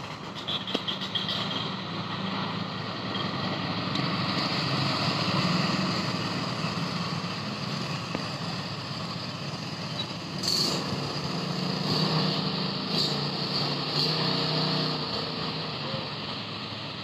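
An engine running steadily, with a few sharp knocks about ten and a half, thirteen and fourteen seconds in.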